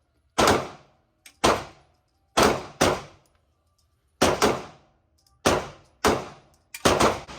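Gunshots at a range, about ten in uneven succession, some in quick pairs, each with a short echoing tail.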